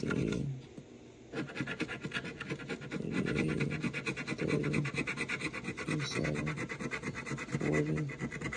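Scratch-off lottery ticket being scratched, the latex coating rubbed off in fast back-and-forth strokes. There is a short pause about half a second in, and then steady scratching.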